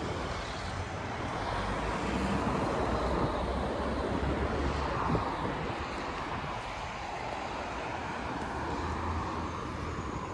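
Outdoor city street ambience: steady noise of traffic on the road, with a low rumble.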